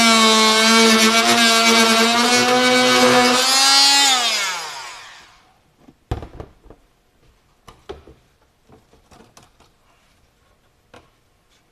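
Handheld power cutting tool running through the old fiberglass roof skin with a loud, steady whine. About four seconds in it is switched off and its pitch falls as it winds down. Scattered knocks and cracks follow as the cut fiberglass is worked loose.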